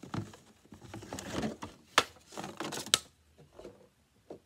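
Plastic toy-gun parts and packaging being handled and taken out of a box: scraping and rustling with a few sharp plastic clicks, the two loudest about two and three seconds in.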